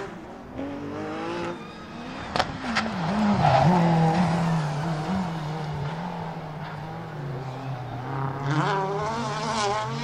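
Toyota Celica GT-4 ST165 Group A rally car's turbocharged four-cylinder engine revving hard through tight hairpins, its pitch rising and falling with the throttle. Two sharp cracks come about two and a half seconds in, and the engine note climbs again near the end as it accelerates away.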